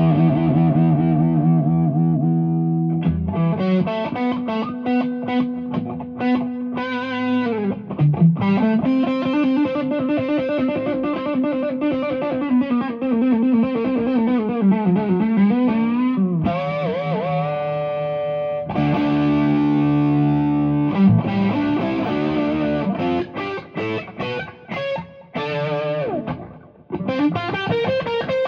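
Warmoth superstrat electric guitar played through overdrive: lead lines of held notes with string bends and vibrato, broken up by quicker runs of short notes.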